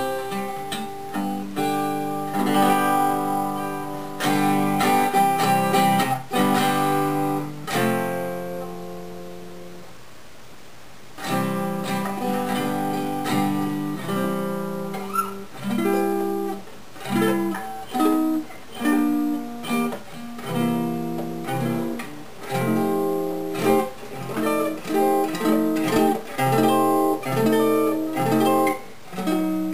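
Gibson L-48 archtop acoustic guitar being played: strummed chords and picked notes, with one chord left to ring out and fade about eight seconds in before the playing picks up again.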